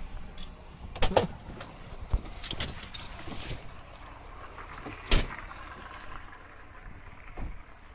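A few sharp knocks and clicks over steady outdoor background noise, the loudest about five seconds in, with rustling from a handheld phone being carried.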